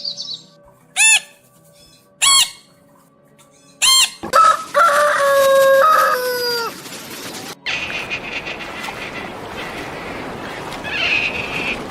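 Chickens: three short, sharp calls, then a rooster crowing, one long call that falls away at its end about four seconds in. After it comes a busier, rustling stretch of flock noise.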